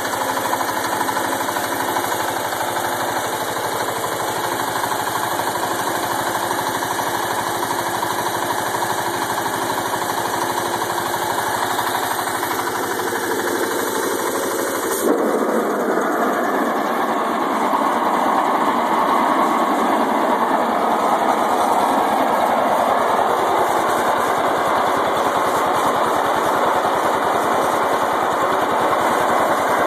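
The single-cylinder Kohler engine of a 1975 International Cub Cadet 1250 lawn tractor running steadily with a fast, even putter. About halfway through, the sound abruptly turns brighter and slightly louder.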